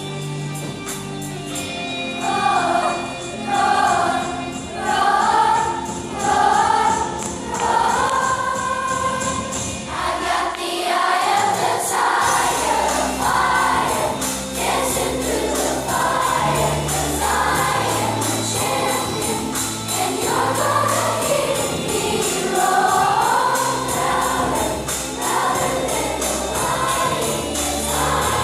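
A fifth-grade children's choir singing a song together over an accompaniment with low bass notes and steady jingling percussion. The voices come in about two seconds in.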